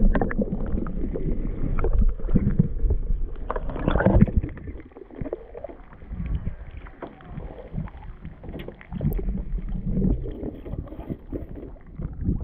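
Muffled water sloshing and irregular knocks from a waterproof action camera being dipped underwater and lifted back out beside a small boat.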